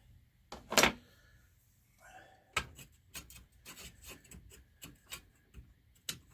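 Handling noise: one sharp knock just under a second in, then a run of irregular light clicks and knocks.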